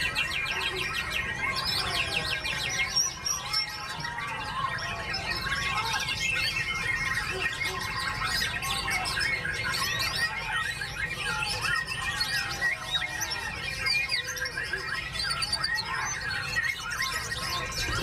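White-rumped shama singing a fast, varied stream of whistles, trills and chirps, tangled with other birdsong, over a steady low rumble.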